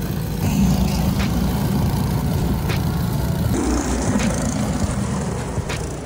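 Walk-behind gas snowblower's small engine running steadily as it is pushed through snow. About three and a half seconds in, the sound changes abruptly to a different engine noise.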